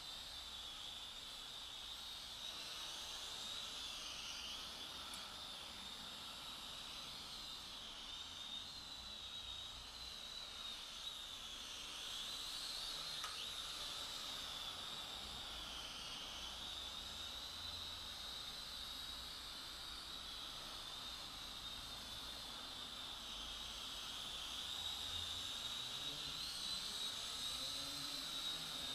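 Small FPV quadcopter's motors and propellers whining steadily, the pitch wavering up and down as the throttle changes.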